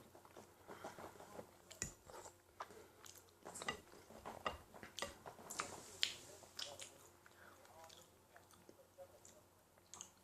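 A person chewing a mouthful of meat, with faint, irregular wet clicks and smacks of the mouth every fraction of a second.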